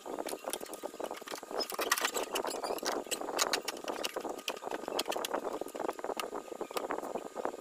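A CRT TV's circuit board and wiring being handled and fitted back into its plastic chassis: many irregular light clicks, taps and rattles.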